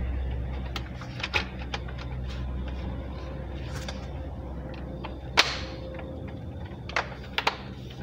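Acer Z1402 laptop's plastic case being handled and set down on a table: a scatter of sharp clicks and knocks, the loudest about five and a half seconds in and a quick few near the end.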